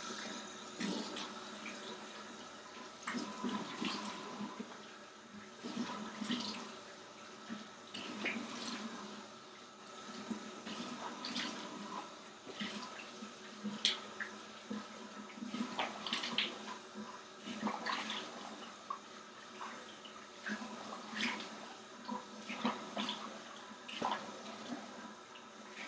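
Water running into a bathroom sink while hands scoop and splash it onto the face, with irregular splashes throughout, as soap cleanser is rinsed off.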